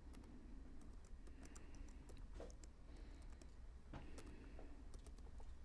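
Near silence: faint, irregular clicks over a low steady hum.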